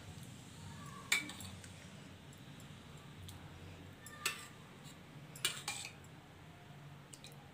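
Metal fork clinking against a glass bowl of marinade: a few separate, sharp clinks, the loudest about a second in and a quick pair a little past halfway, with fainter ticks between.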